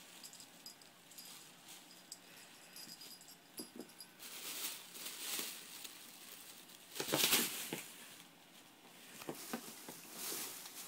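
Thin plastic carrier bag rustling and crinkling in short bursts as a cat caught in its handle moves and drags it over carpet; the loudest burst comes about two-thirds of the way in.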